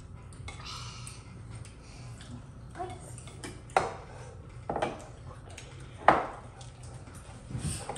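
Cutlery and dishes clinking during a meal: a few sharp, separate clinks a second or so apart, the loudest about six seconds in, then a softer knock near the end.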